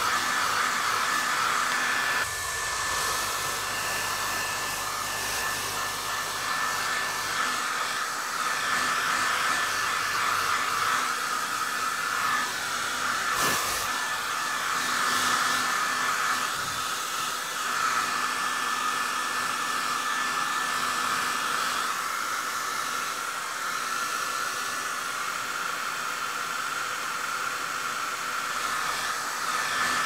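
Hair dryer running steadily: an even rush of blown air with a constant whine from its fan motor.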